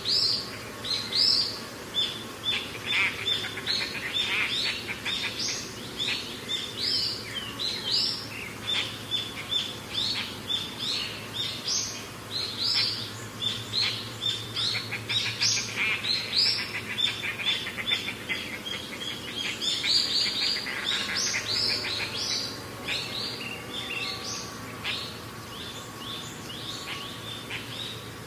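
Many birds chirping and calling at once, short repeated calls overlapping one another, thinning out in the last few seconds.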